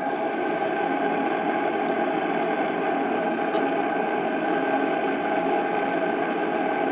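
A live-steam model boat's gas-fired steam plant gives a steady hum of several held tones over a hiss, unchanging throughout, with one faint tick about three and a half seconds in.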